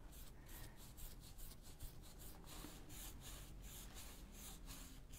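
Faint, repeated rubbing strokes of a hand-held applicator working glaze over the raised, embossed surface of a wooden sign board.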